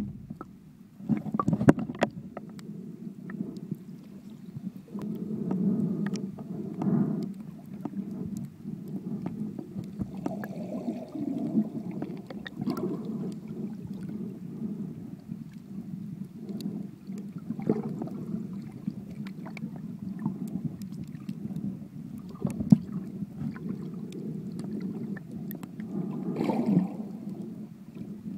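Muffled underwater sound picked up by an iPhone 4 inside a sealed waterproof case: a steady low rumble of moving water with scattered sharp clicks and knocks and a few louder swells.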